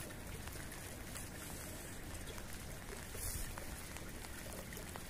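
Faint, steady outdoor hiss of light rain with scattered small drip ticks, over a low wind rumble on the microphone.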